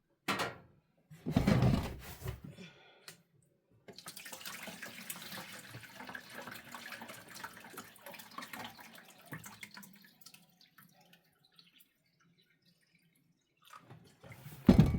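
Water pouring into a reusable water bottle as it is refilled, a steady rush for about six seconds that trails off and stops. Before it come a couple of clunks from the bottle being handled.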